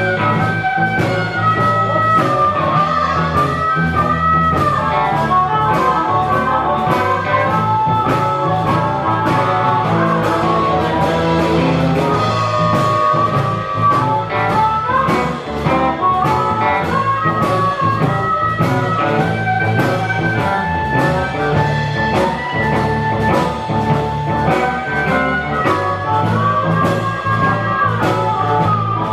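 Blues-rock band playing an instrumental passage: guitar lines bending in pitch over bass and a steady drum beat.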